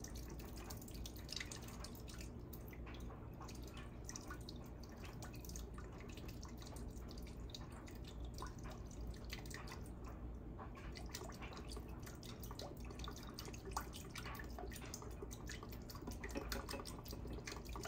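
White balsamic vinegar trickling and dripping from an upturned bottle's pour spout into a blender jar, faint and steady, with many small irregular drips.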